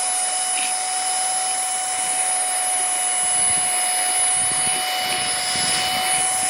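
Easy Home cordless cyclonic stick vacuum running with a steady high-pitched motor whine over a rush of air as it sucks up coffee grounds.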